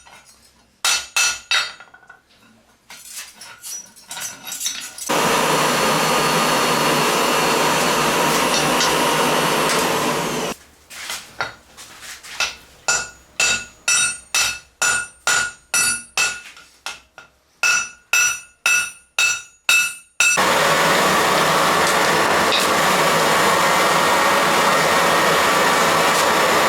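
Hammer blows on hot steel over an anvil, each strike ringing, with a few lighter blows in the first seconds and a run of about twenty strikes at roughly two a second in the middle. Twice a loud, steady rushing noise runs for several seconds, from about five seconds in and again from about twenty seconds in.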